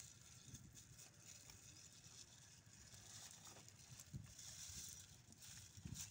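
Near silence, with a faint hiss and a few faint soft thumps, one about four seconds in and one near the end.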